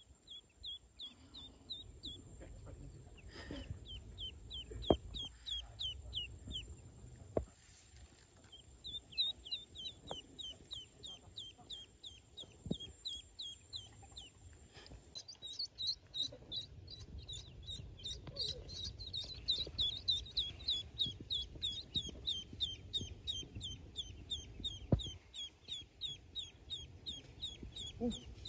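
Newly hatched Pekin ducklings peeping: a steady run of short, high, falling peeps, several a second, getting denser and louder about halfway through. A few sharp taps sound among the peeps.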